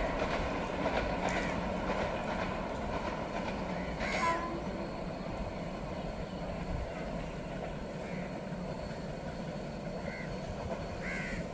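Steady train noise: a passenger train running away along the track while a freight train hauled by twin WDG3A diesel locomotives approaches, its engines running.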